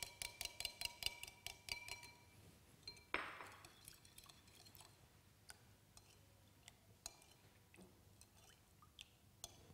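A utensil clinking quickly and evenly against a ceramic bowl, about four or five ringing strikes a second, as lemon juice is stirred into sugar syrup. The stirring stops after about two seconds; a single knock follows about three seconds in, then a few scattered light clinks.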